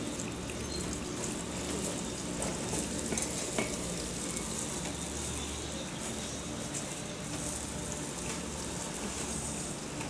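Running water splashing into an ornamental fish pond: a steady, even hiss.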